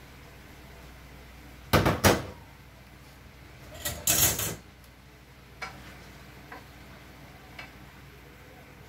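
Kitchen clatter of dishes and utensils being handled at the stove: two sharp knocks about two seconds in, a brief clattering scrape around four seconds, then a few light clicks.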